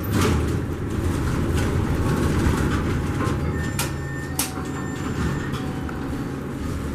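Schindler-installed MEI hydraulic elevator's doors sliding open, with a steady low rumble from the door mechanism and two sharp clicks about four seconds in.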